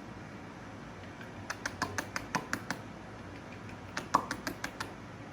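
Two quick runs of sharp clicks, seven or eight each, about a second and a half apart, over the steady noise of a running dehumidifier.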